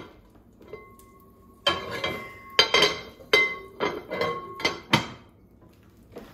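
A frying-pan lid clattering against the pan's rim as it is worked into place, about six knocks, each with a short metallic ring.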